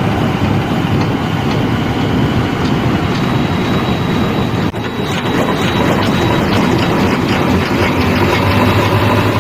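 Diesel engine of a JCB 3DX backhoe loader running under working load, with steady mechanical clatter and rattle.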